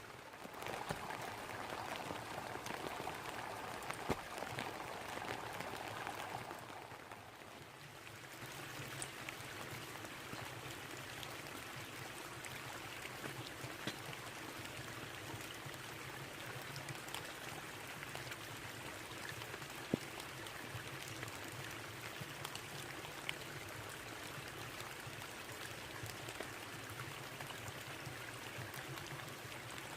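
Heavy rain falling on a tarp overhead, with scattered drops tapping sharply on it, over the steady rush of a babbling brook. The rain eases a little about seven seconds in, then carries on evenly.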